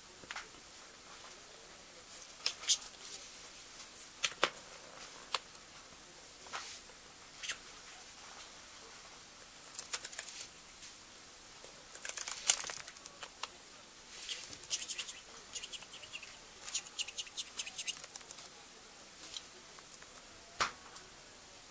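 Scattered sharp clicks, taps and short rustles from a pet budgerigar moving about among small plastic toys on a hard floor, with a busier run of quick ticks about two-thirds of the way through.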